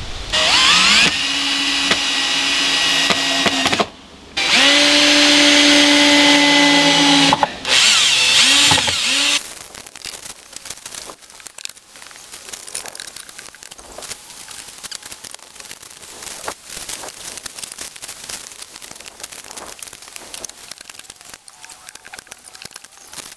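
A small electric power tool's motor runs in three bursts within the first nine seconds or so, each spinning up to a steady whine and then stopping. After that come quieter scattered clicks and knocks.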